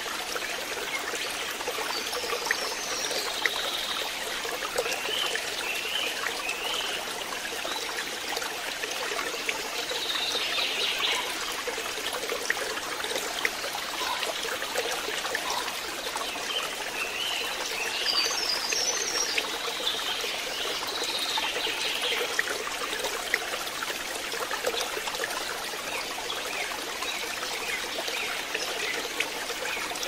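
Waterfall: a steady rush of falling water, with birds chirping now and then over it.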